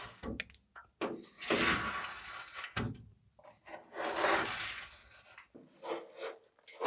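A few separate rasping scraping strokes, each under a second long, two of them louder, about a second and a half and four seconds in.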